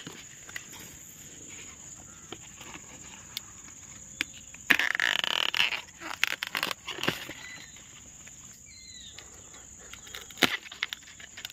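Outdoor ambience: a steady high-pitched drone, scattered sharp clicks, and a loud rustling, crunching burst lasting about a second, about five seconds in. A couple of short chirps follow a few seconds later.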